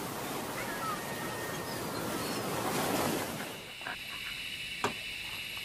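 A rushing, surf-like noise gives way about three and a half seconds in to a steady high-pitched forest insect chorus. A few sharp clicks sound over the chorus, the loudest near the end.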